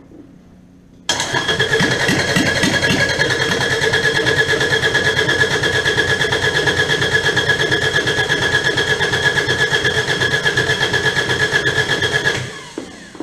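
Kubota D722 three-cylinder diesel being cranked over by its electric starter, with a steady starter whine and an even pulsing beat, for about eleven seconds. It starts abruptly about a second in and winds down near the end.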